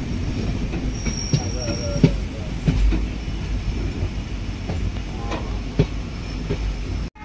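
Passenger train running on the rails, heard from on board: a steady low rumble of wheels with scattered clanks and knocks, and a short thin squeal between one and two seconds in. It cuts off abruptly near the end.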